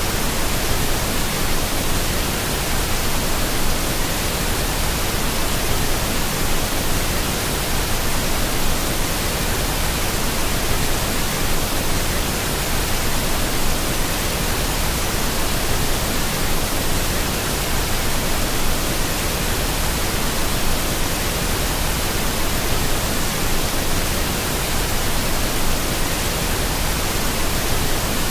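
Waterfall streams pouring onto rock, a loud steady rushing noise that never changes.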